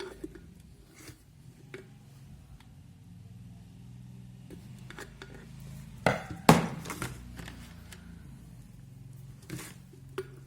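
An electric kettle's base and parts being handled: scattered light clicks and knocks, with two sharp, louder knocks about six seconds in, over a low steady hum.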